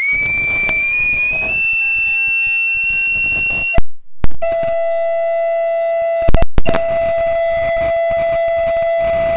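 Loud audio feedback squeal: a steady high tone that creeps slowly upward in pitch, breaks off with a couple of loud pops about four seconds in, then comes back as a lower steady tone, with another short burst of pops about six and a half seconds in.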